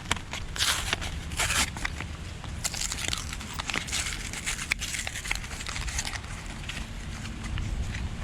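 Packaging of a two-pack of replacement 3157 bulbs being opened by hand: irregular crinkling and crackling of plastic and card, with short bursts of tearing.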